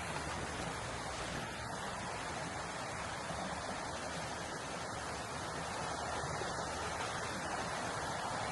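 Darby Creek's water flowing, a steady rushing noise that grows a little louder near the end.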